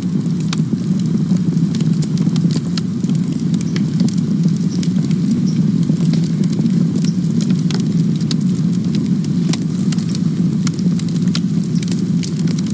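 Campfire burning: a steady low rumble of flame with frequent small crackles and pops of burning wood.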